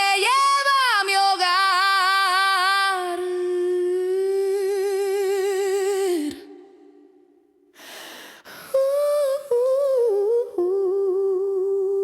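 A lone singing voice hums or holds wordless notes with steady vibrato, without accompaniment. It fades out about six seconds in and comes back after a short breathy noise.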